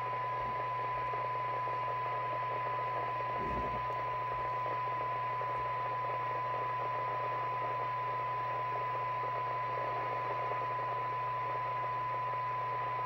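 Thunderpole T800 CB radio's speaker giving a steady test tone from a signal generator, half buried in receiver hiss. This is a very weak signal of about 0.3 microvolt, heard while the receiver's front end is being tuned for best sensitivity.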